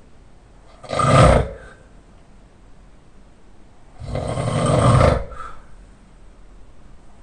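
Loud open-mouth snoring from a sleeper lying on their back: a short snore about a second in, then a longer one that grows louder from about four to five seconds in.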